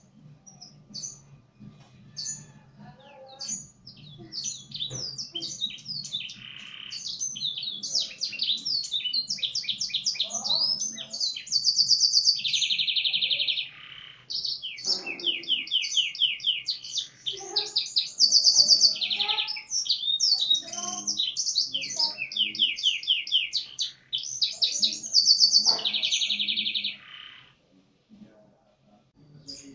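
Domestic canary singing, its song tutored with blackthroat (black-throated canary) phrases: a few scattered chirps at first, then a continuous run of fast high trills broken by several long, evenly repeated rolls.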